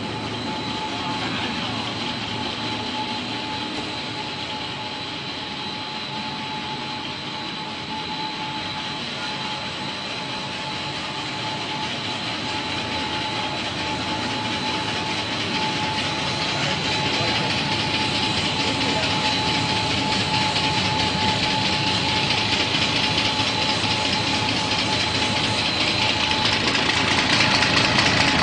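Core-filled pillow snack production line machinery running steadily: a constant mechanical din with a steady high whine, growing louder in the second half as the forming and cutting rollers come close.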